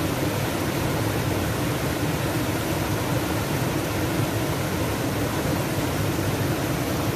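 Mountain creek rushing steadily over boulders and down a small cascade.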